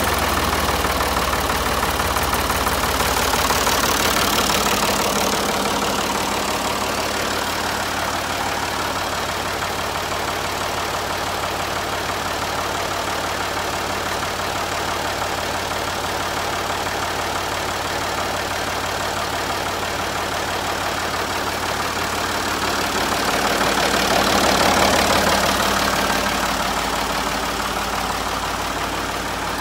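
Ford 4000 tractor's three-cylinder diesel engine idling steadily, swelling louder twice for a few seconds, about four seconds in and near the end.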